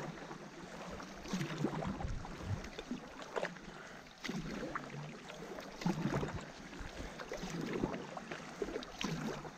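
Stand-up paddles stroking through river water from a tandem inflatable paddleboard, each stroke a short splash and gurgle, coming every second or two and unevenly from the two paddlers.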